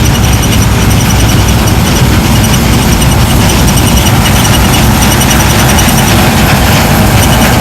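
Heavy harvest machinery running steadily and loudly: a deep engine rumble with a rapidly pulsing high-pitched whine over it.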